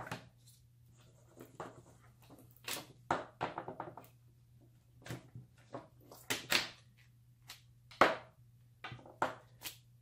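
Gloved hands working cables and a plastic junction box on the back of a solar panel: scattered clicks, taps and knocks, the sharpest about six and a half and eight seconds in, over a faint steady low hum.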